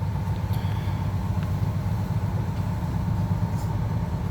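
A fishing boat's engine running, a steady low drone with a faint steady hum higher up.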